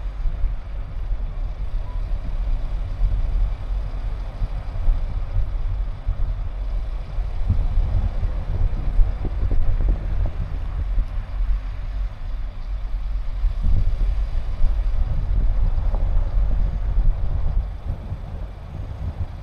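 Car driving, a steady low rumble of engine and road noise that quietens near the end.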